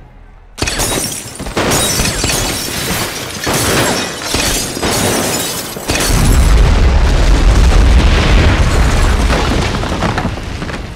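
Film sound of gunfire and shattering glass, several loud shots over about five seconds. About six seconds in a bomb explodes with a deep, long rumble and falling debris that slowly fades.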